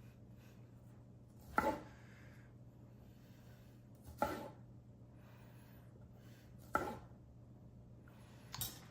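Knife cutting tomatoes in half on a cutting board: three sharp knocks of the blade meeting the board, spaced about two and a half seconds apart, then a softer pair of taps near the end.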